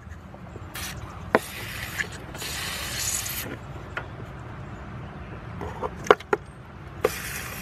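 WD-40 aerosol can spraying in short hissing bursts, the longest about a second, with another near the end, and a few sharp clicks and knocks of handling in between.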